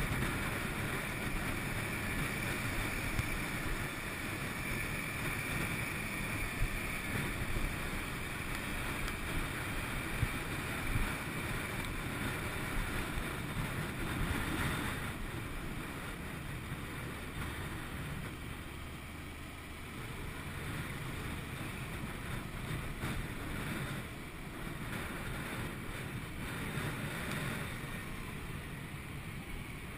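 Wind rush on a helmet-mounted GoPro with the 2011 Honda VFR800 VTEC's V4 engine running underneath, as the motorcycle rides through town traffic. The recording quality is poor.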